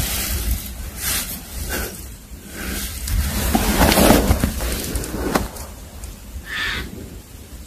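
Handling noise from a handheld phone being moved about: rustling and a few sharp knocks, over a low rumble like wind on the microphone.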